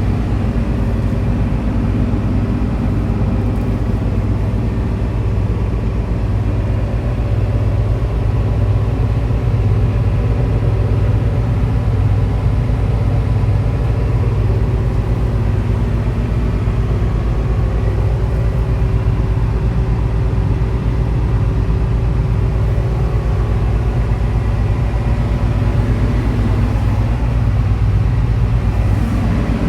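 Case CX210C excavator's diesel engine running steadily at a constant speed.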